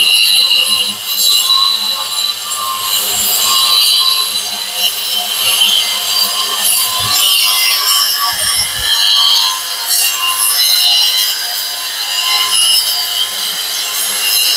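Boda brushless wall chaser cutting a groove into a wall, its motor and blades running under load with a steady high-pitched whine over a grinding hiss.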